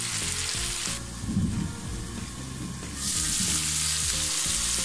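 Sliced potatoes and tomatoes sizzling in hot oil in a frying pan. The sizzle drops away for about two seconds, with a brief dull thud as it falls, then comes back.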